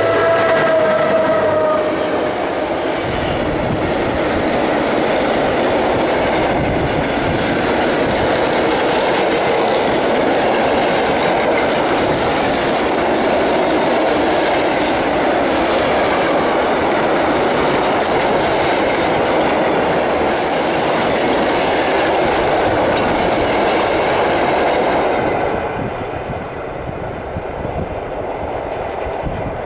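Freight train of covered hopper wagons hauled by a class 441 electric locomotive passing close by: the steady rumble and clatter of wheels on the rails for about 25 seconds, dropping away near the end as the last wagon goes past.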